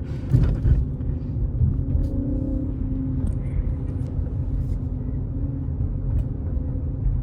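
Car engine running steadily, heard as a low rumble, with a brief sharp knock about half a second in.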